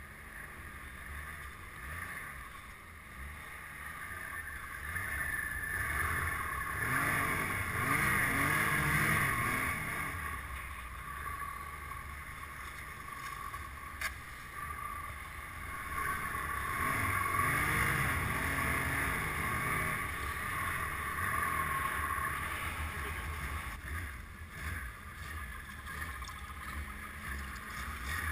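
Snowmobile engine running under the rider as it climbs through the snow, its revs rising and falling and swelling louder twice, about a quarter of the way in and again just past halfway.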